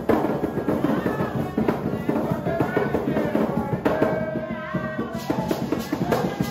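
Garifuna hand drums played live in a fast, dense rhythm, with singing over the drums around the middle.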